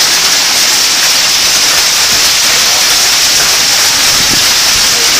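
Heavy hail and rain falling on pavement and parked vehicles: a loud, steady hiss with no let-up.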